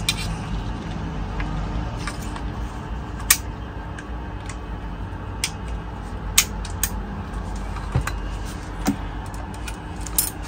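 Salvimar Wild speargun being handled as its steel shaft is fitted, giving about seven sharp metal clicks and clinks spread over several seconds. A steady low hum runs underneath.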